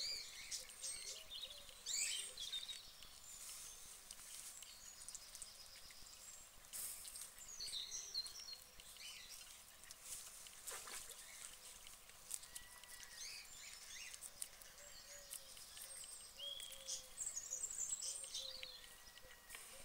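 Small birds chirping and trilling in short high calls, with faint crisp clicks of a guinea pig chewing lettuce leaves.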